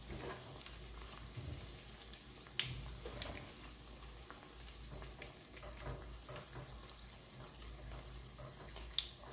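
Atta donut deep-frying in sunflower oil: a faint, steady sizzle of bubbling oil, with a few sharp pops.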